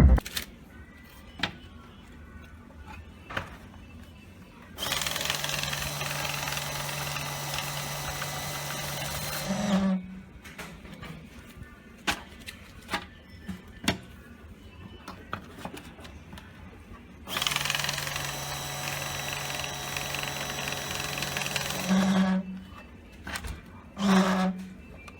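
V30 banknote counting machine running twice, about five seconds each time, its motor humming steadily under the rush of notes feeding through. Each run ends in a short low tone, with light clicks between the runs and one more short low tone near the end.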